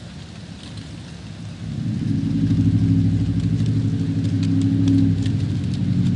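Wind rustling through leaves; about two seconds in, a passing train's low, steady engine drone comes up loud and holds, with light clicks and ticks over it.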